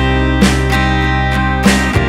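Background music: a guitar playing held chords, with sharp strums about half a second in and again near the end.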